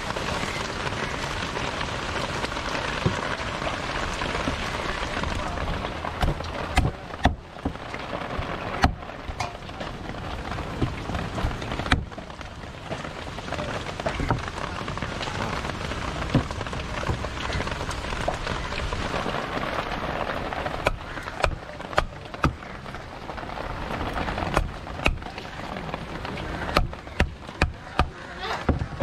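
Steady rain falling on a wet outdoor stall, with sharp knocks of a heavy knife chopping skipjack tuna on a wooden board. The knocks come in a few clusters, a handful about six to nine seconds in and many more over the last eight seconds.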